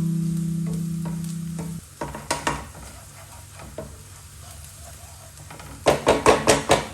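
Soft mallet-like music notes ring out and stop about two seconds in. Then comes stirring in a frying pan over a faint sizzle: a few utensil clicks against the pan, and near the end a quick run of about seven loud knocks.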